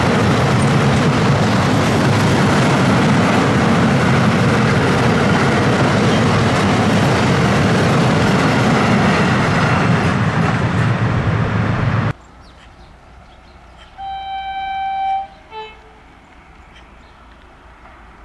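A freight train of double-deck car-carrier wagons rolls past at speed with loud, steady wheel and rail noise, which stops abruptly about 12 s in. A couple of seconds later an approaching CFR EA-class electric locomotive sounds its horn once for about a second, followed by a brief lower note.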